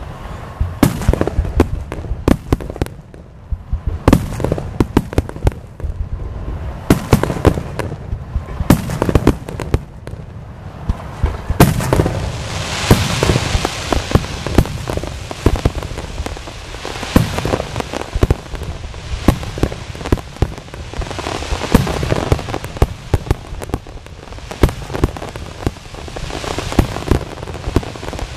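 Aerial fireworks display: shell bursts going off one after another, many sharp bangs, with stretches of dense hissing crackle between them.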